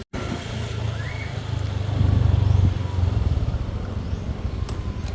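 Motor scooter running along the road, a steady low rumble that rises a little about two seconds in.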